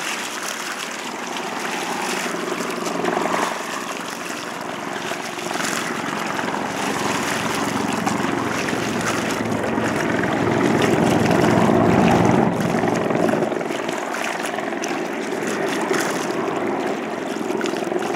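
Firefighting helicopter hovering low over a lake while it picks up water on its long line, the main rotor beating steadily over the engine. It grows louder to its loudest around 11 to 12 seconds in, then eases a little.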